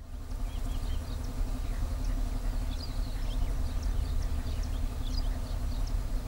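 Outdoor field sound: a steady low rumble with many short bird chirps high above it.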